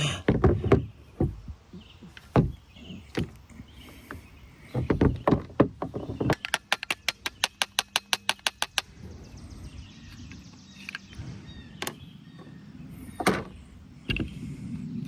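Hand tools and metal parts knocking and clicking while a small-engine ATV carburetor is taken apart. About six seconds in comes a quick, even run of clicks, roughly eight a second for two and a half seconds, followed by a faint steady hiss.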